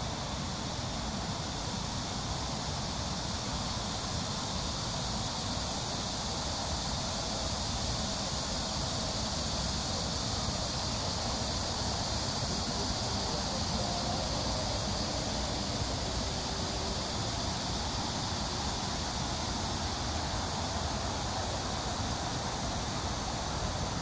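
A steady chorus of cicadas, a continuous high buzz, over a low rumble.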